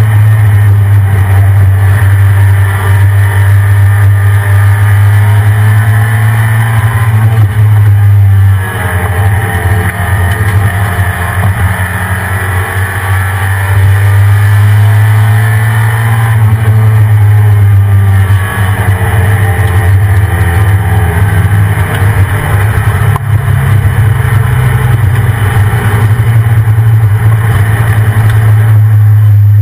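Ford F-150 Lightning pickup's V8 running under way, over a heavy steady low drone. Its pitch drops about a third of the way in, then climbs again, and does the same once more later.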